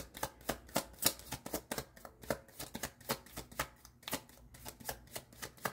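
Tarot deck being shuffled by hand to draw a clarifying card: a quick, uneven run of card snaps and flicks, about three to four a second.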